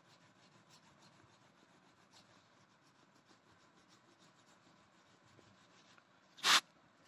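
Orange wax crayon rubbing across a paper sheet in short, faint strokes. About six and a half seconds in comes one brief, much louder scratchy rasp.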